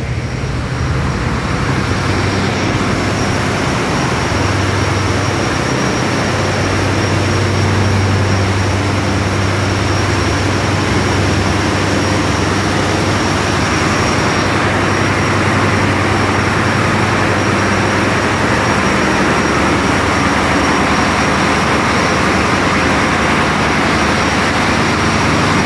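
A cargo ship's diesel engines and engine-room machinery running: a loud, steady drone with a deep hum and a thin high whine over it. The noise builds in the first two seconds, then holds steady, heard from inside the engine room.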